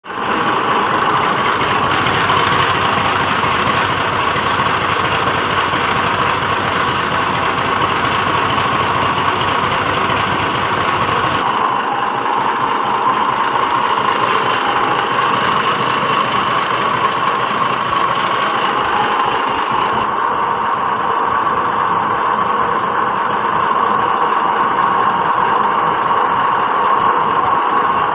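Massey Ferguson 260 tractor's diesel engine running steadily, with its low rumble dropping away about eleven seconds in.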